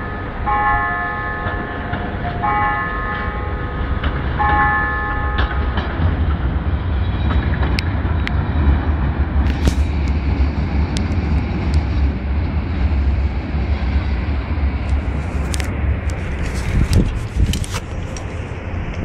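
A bell-like chime of several ringing tones, sounding about four times at two-second spacing over the first five seconds, then stopping. After it, a steady low rumble, with a few sharp clicks and knocks near the end.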